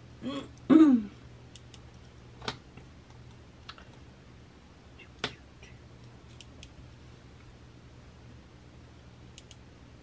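Jewelry pliers and small metal jump rings clicking sharply now and then, a few isolated ticks spread over the seconds, as a jump ring is worked into a chain link. A short wordless vocal sound comes just under a second in and is the loudest thing.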